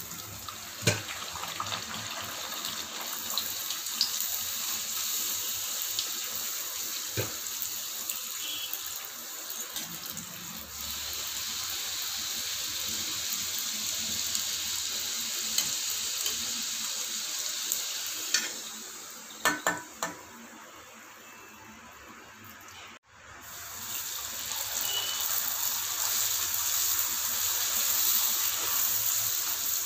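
Poori deep-frying in hot oil in a steel kadai: a steady, vigorous sizzle of bubbling oil as the dough puffs up. It goes quieter for a few seconds past the middle, with a few sharp clicks there.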